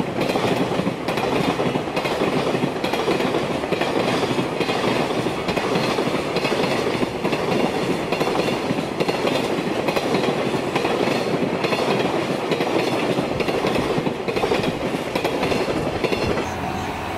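Container freight train wagons rolling past, wheels clacking over rail joints above a steady rumble of wheels on rail. The sound changes near the end as the last wagons go by.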